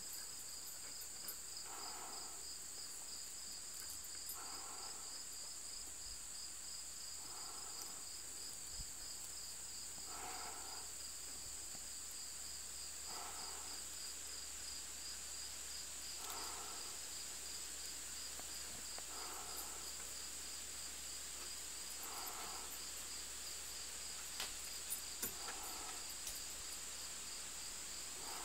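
Insect chorus: a steady high trill with a second, rapidly pulsing trill just below it, running without a break. A lower, shorter call repeats about every three seconds, and a few faint taps come near the end.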